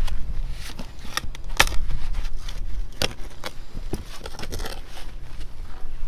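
A shovel digging into the dirt floor of a pit: a run of irregular scrapes and crunches as the blade is pushed in and soil is lifted.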